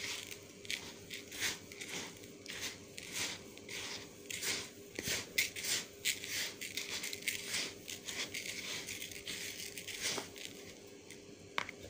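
Dry grain mix of wheat, maize, pearl millet and bran being stirred by hand in a plastic tub: a rhythmic rustling swish of grains, about two strokes a second.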